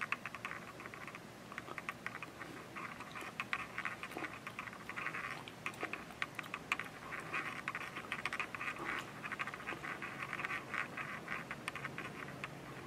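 Faint, rapid, irregular light clicking and tapping, in clusters of small ticks.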